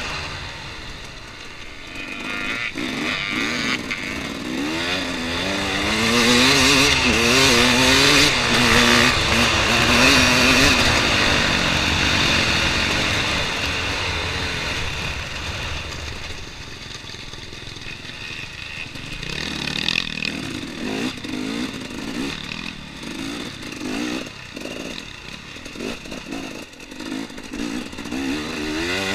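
2014 KTM 250 XC-W two-stroke dirt bike engine under hard throttle, its pitch rising and falling as the rider accelerates and shifts. It is loudest in the first third, then eases off and runs choppier in the second half.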